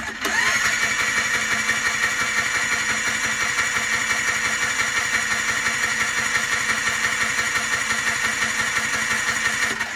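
Two-stroke ATV engine cranked over steadily by its electric starter for about ten seconds, with a motor whine over a fast even pulsing. The engine is being turned over to drive its oil injection pump and test whether the pump primes and pulls oil.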